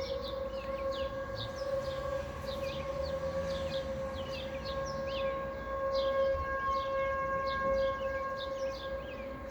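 Several T-128 outdoor warning sirens sounding one steady tone during a monthly siren test. Many short, high chirps from birds run over it.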